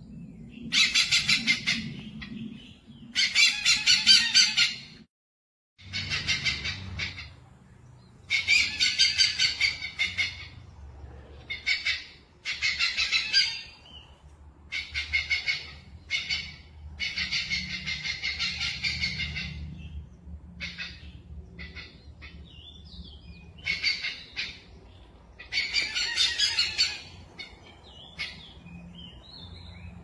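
Hornbills calling: a series of rapidly pulsed call bursts, each a second or two long, broken by a short gap about five seconds in.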